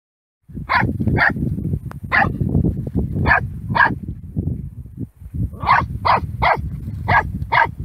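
Puppy barking at a snake: about ten short barks, five spaced out, then after a pause about five seconds in, a quicker run of five, over a steady low rumble.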